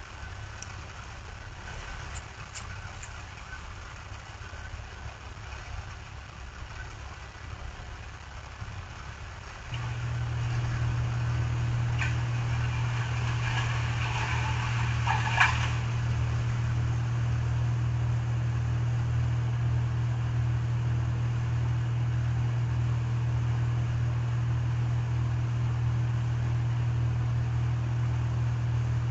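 A motor running steadily with a low hum that becomes markedly louder and fuller about ten seconds in, with a short spell of clicks and rattling a few seconds later.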